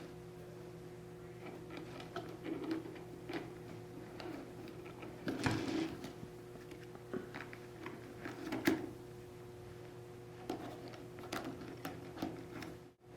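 Hands threading a replacement Boa lace through the guides of a wading boot: soft rustles of lace and boot material and small clicks of the plastic guides, louder twice, about five and a half and eight and a half seconds in. A steady low hum runs underneath.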